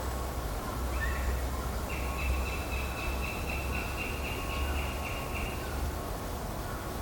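Female northern goshawk calling: one short note about a second in, then a rapid run of about a dozen repeated notes, roughly three a second, lasting nearly four seconds.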